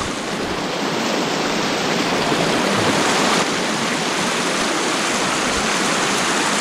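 Shallow, rocky mountain stream running through a riffle right at hand: a steady rush of water.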